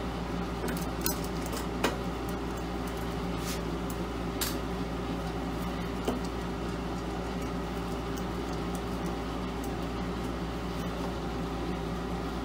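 Small metallic clicks and ticks as screws are backed out of a laser marking machine's sheet-metal housing with a screwdriver, a few sharp ones in the first half. Under them runs a steady low hum.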